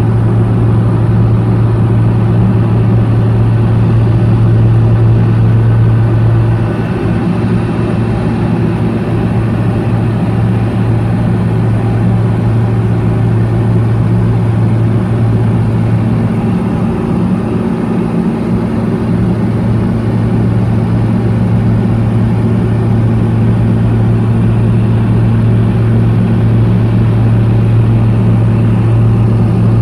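Propeller aircraft in flight, heard from inside its cabin: a steady engine and propeller drone with a deep, even hum. The level drops slightly about seven seconds in, then holds steady.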